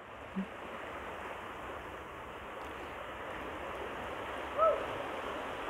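Sea surf washing over shoreline rocks, a steady rushing wash. A brief pitched sound rises and falls about four and a half seconds in.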